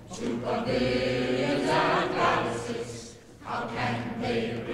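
Mixed chorus of men and women singing an operetta ensemble in full voice, dipping briefly about three seconds in before coming back.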